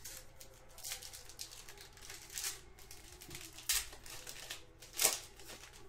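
Plastic wrappers of Panini Prizm basketball card packs crinkling and tearing as the packs are ripped open by hand, in several short rustles, the loudest about five seconds in.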